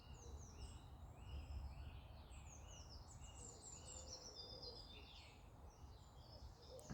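Faint woodland birdsong: many short, high chirps and falling notes from several birds, over a low rumble.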